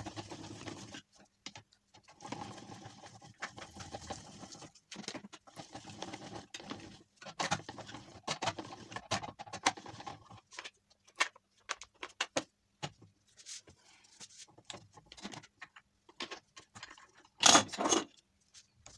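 Hand-cranked plastic rotary drum grater turning and shredding cheese: a steady rattling scrape with a squeaky tone for about ten seconds, then scattered clicks as it stops. Near the end a short, loud plastic clatter as the grating drum is pulled out.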